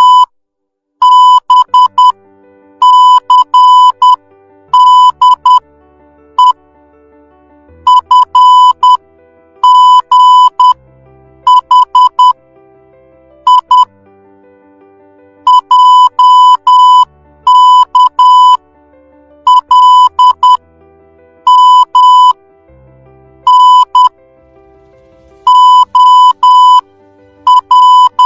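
Morse code letters sent one after another as a single high steady beep tone, keyed on and off in short and long pulses, with a brief pause between letters. Faint background music runs underneath.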